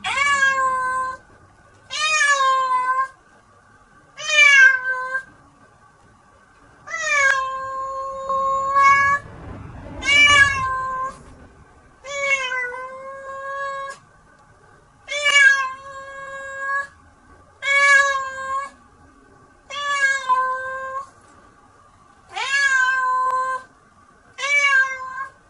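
Domestic cat meowing over and over: about eleven long, drawn-out meows, each a second or two long, with a short pause between. They are the cat's protest at being shut in for a bath.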